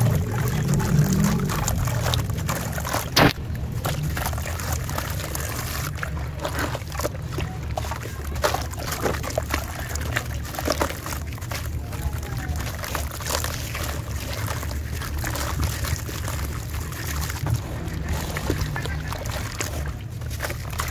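Water-soaked sand-cement slabs crumbling into a tub of water, with many small crackles as wet crumbs and gritty paste trickle and splash in and a hand sloshes the water. There is one sharp knock about three seconds in, over a steady low rumble.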